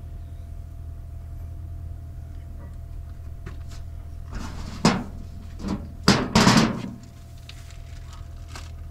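A few sharp knocks and short noisy rattles of objects being handled, clustered about halfway through, over a steady low hum.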